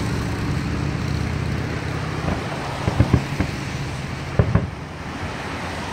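A vehicle engine running steadily and fading away over the first two seconds or so, then several sharp firework bangs, mostly in pairs a fraction of a second apart.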